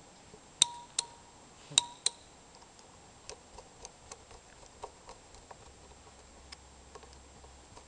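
Sharp metal clicks as parts of a small electromechanical relay are fitted together, four in the first two seconds, some with a short ring, then lighter, irregular ticks as a screwdriver turns a small screw into the relay's frame.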